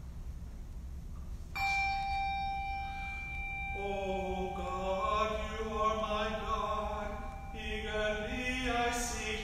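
A single held note sounds about one and a half seconds in and carries on steadily. From about four seconds a man's voice chants a liturgical line over it, its pitch moving in short steps.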